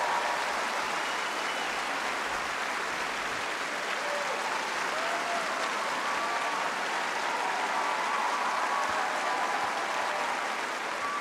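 Large audience in a concert hall applauding steadily, with a few cheers.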